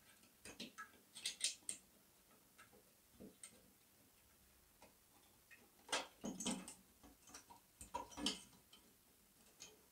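Faint clicks and light taps of small metal kit parts being slotted into place by hand, coming in a few short clusters.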